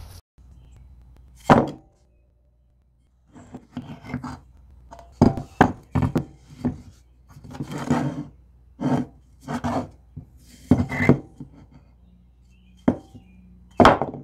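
A short block of old rough-sawn sycamore 2x4 with a rusty nail in it, handled on a wooden workbench: an irregular run of wooden knocks and short scrapes as it is picked up, turned over and set down. There is a sharp knock about a second and a half in, and the loudest one comes just before the end.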